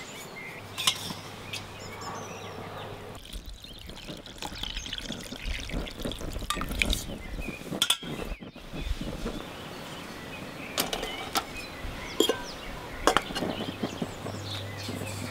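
Water poured from a metal cup into an aluminium bowl of split peas, splashing onto the peas, with sharp clinks of metal bowls being handled and set down before and after.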